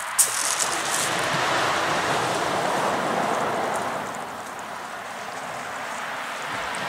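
Sea waves washing on a pebble beach: a steady rush that eases a little about four seconds in, with one sharp click just after the start.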